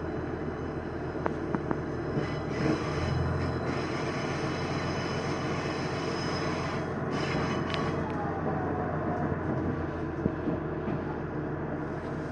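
Diesel railcar running on jointed track, heard from inside the car: a steady engine drone and wheel-on-rail rumble, with a few sharp clicks in the first few seconds.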